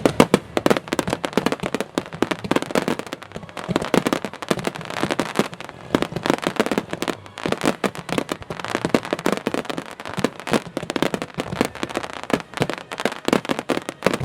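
Aerial fireworks shells going off in a dense, continuous barrage of bangs and crackles, many per second: a fireworks-display finale.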